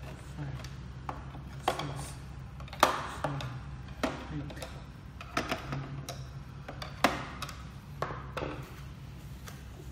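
Scattered sharp clicks and taps of a screwdriver and small screws against the plastic case of a projector as its bottom screws are taken out and the tools are set down, the loudest tap just before three seconds in. A low steady hum runs underneath.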